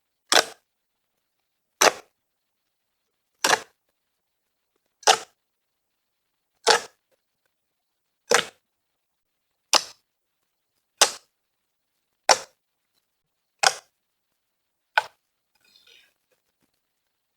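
Eleven short, sharp pops about a second and a half apart, with dead silence between them: fluffy slime being pressed and popped.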